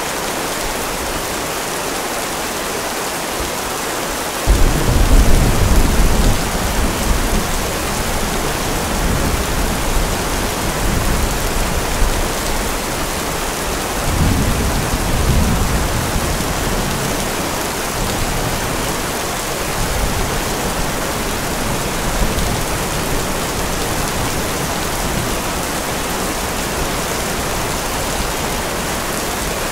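Steady heavy rain hissing, with thunder. A sudden clap about four and a half seconds in rumbles on for a few seconds, a second rumble comes about fourteen seconds in, and fainter rolls follow later.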